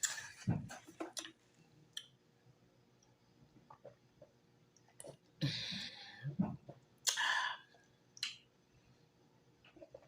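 Close-up mouth sounds of eating cow foot: scattered wet clicks and chewing, with two louder breathy bursts about five and a half and seven seconds in.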